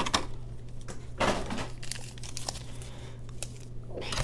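Foil Pokémon booster pack wrappers crinkling as the packs are handled, with a louder burst of crinkling about a second in and another near the end.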